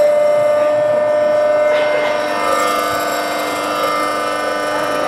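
Induction motor fed by a PWM variable-frequency drive (inverter), whining with several steady tones. About two seconds in the note changes as more tones come in: the inverter shifting its pulse pattern, dropping pulses as the drive speeds the motor up.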